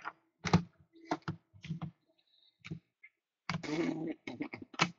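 Hard plastic trading-card holders clicking and tapping against a wooden desk as cards are handled and laid down. A few scattered clicks come first, then a quick run of clicks with some rustling near the end.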